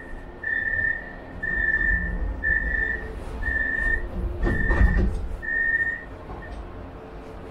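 Metro train's door-closing warning signal: a steady high beep repeating about once a second, seven times, the last one cut short. Under the beeps is a low rumble, with a heavier thud about five seconds in.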